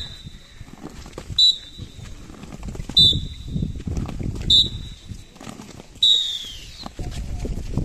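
Instructor's whistle giving four short, sharp blasts about a second and a half apart to pace a crawling drill; the last blast is longer and slides down in pitch. A low rustling noise runs underneath.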